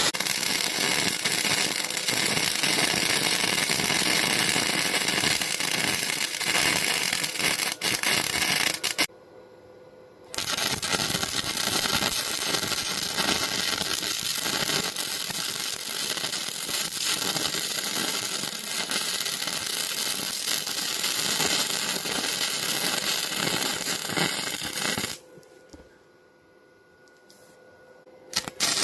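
Wire-feed (MIG) welder arc running weld beads: a steady, dense crackle in two long runs, breaking off for about a second near the 9-second mark and stopping at about 25 seconds, with a short start again just before the end.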